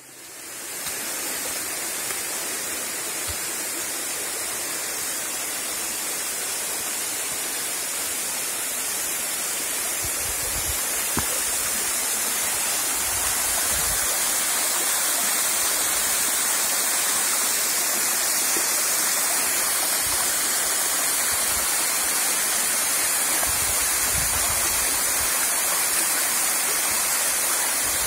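Waterfall pouring down a rock face onto rocks and into a pool: a steady rushing of falling water, growing a little louder about halfway through.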